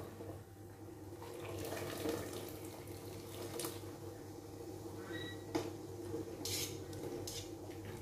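Water bubbling steadily in a large stainless steel pot as greens are blanched, with several sharp clinks against the metal pot.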